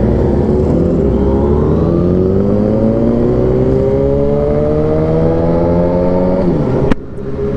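Yamaha FZ-09's 847 cc inline-three engine on its stock exhaust pulling under acceleration at road speed, its revs climbing steadily for about six seconds, with wind rush. Near the end the revs drop briefly and the sound cuts off suddenly.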